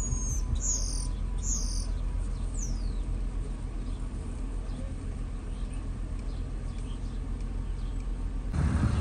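Birds chirping: a few short, high chirps that slide down in pitch, in the first three seconds, then stop. Under them, the steady low hum of the idling pickup heard from inside the cab.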